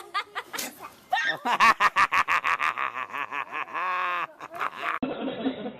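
A woman laughing hard in a quick run of high-pitched bursts, ending in one long drawn-out note.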